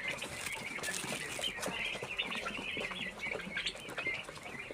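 A flock of chickens chirping and clucking together in a dense, continuous chatter, with scattered short knocks and rustles.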